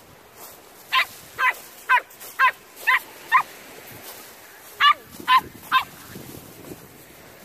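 Small dog barking: six quick, sharp barks about half a second apart, then after a short pause three more.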